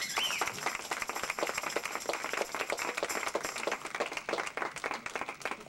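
A small group of people applauding, a dense patter of hand claps that dies away near the end, with a short high rising-and-falling cry at the very start.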